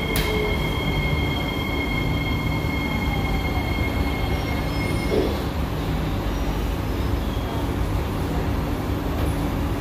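Running noise inside an SMRT C151A train car: a steady low rumble of wheels on rail, with a brief click at the start. Two steady high whines stop about five and a half seconds in as the train runs into a station.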